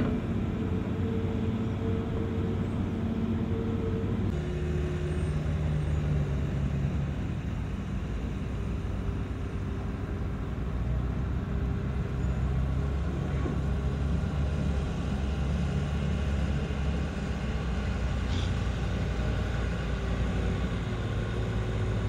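Diesel engine of heavy earth-moving equipment running under work, a steady low rumble whose pitch drops about four seconds in and shifts again later as the revs change.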